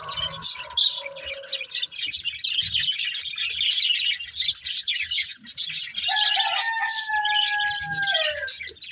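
Budgerigars chirping and chattering rapidly and without pause. About six seconds in, a longer steady note sounds for roughly two and a half seconds and drops in pitch at its end.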